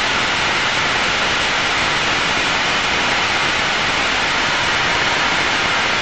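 Steady cockpit noise of an Aero L-39 Albatross in flight, its single turbofan engine and the airflow over the airframe heard as an even, constant hiss.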